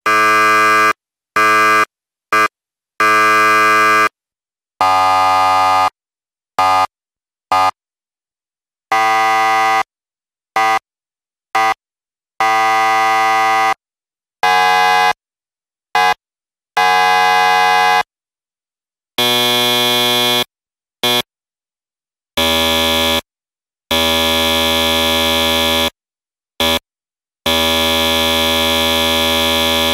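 A series of electric buzzers, like game-show wrong-answer buzzers, each a steady, harsh, rasping tone: some short blips, singly or in quick pairs, and some held for one to two seconds, with silence between them. The pitch and tone change from one buzzer to the next.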